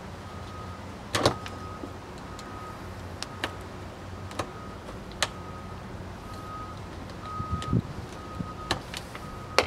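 Scattered sharp clicks and taps of a knife blade against a steel wiper blade frame as the old wiper rubber is cut and worked out of it, the loudest a bit over a second in, over a steady low hum.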